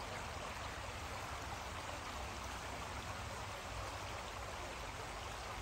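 A creek flowing, a steady even rush of water that does not change.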